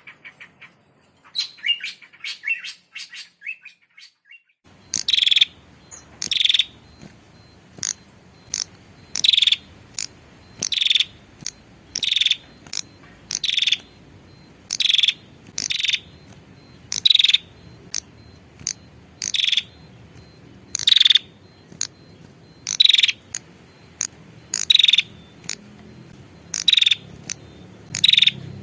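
Female prenjak (prinia) calling: a few seconds of quick twittering, then sharp high chirps repeated roughly once a second with thinner short notes between them. It is a lure call used to bring in males.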